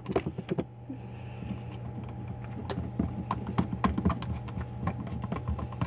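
Irregular light taps and clicks of slime-making supplies being handled and set down on a tabletop, over a steady low hum.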